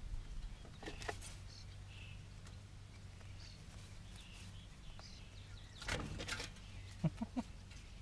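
Faint outdoor background with small birds chirping. Over it come light rustles and taps as young rabbits move about a galvanized metal feeder in long grass: a couple of taps about a second in, a scuffle near six seconds, and three quick knocks just after seven seconds.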